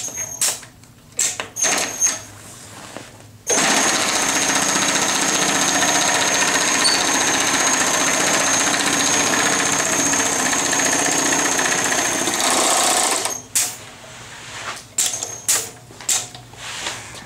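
Union Special 80700CD4 industrial sewing machine on a seaming cart, run at speed for about ten seconds as it sews a seam through heavy mesh fabric, with a steady high whine. Before and after it run come a few clicks and knocks as the fabric is handled.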